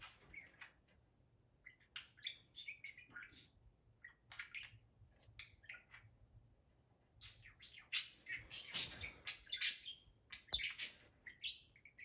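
Budgerigar chattering and warbling in quick, chirpy bursts, growing busier and louder in the second half, with a single sharp click near the end.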